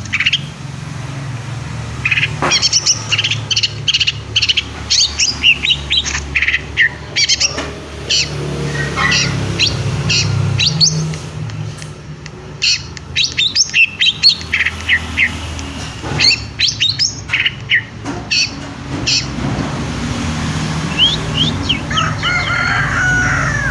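Long-tailed shrike (pentet) singing in clusters of short, sharp chirps and quick whistled notes, with gaps of a second or two between bursts. A steady low hum runs underneath.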